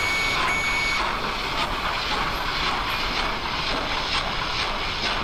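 Steam locomotive running: a steady hiss of steam with faint chuffs about twice a second.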